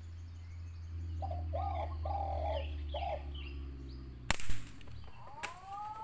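A bird calling with four short harsh notes, then a single sharp air rifle shot about four seconds in. A fainter second crack and a rising whistled bird note follow near the end.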